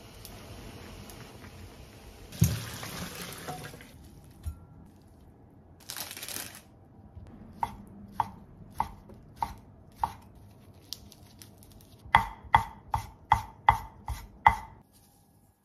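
Kitchen knife chopping on a wooden cutting board, slicing chikuwa with evenly spaced chops about every half second, then a faster, louder run of about eight chops through green shoots near the end. Early on, a thump and rustling as the sprouts are handled.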